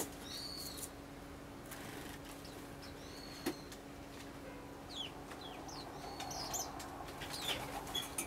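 Eurasian tree sparrows giving short, scattered chirps, with brief wing flutters as they hop and fly about, and one sharp click about three and a half seconds in.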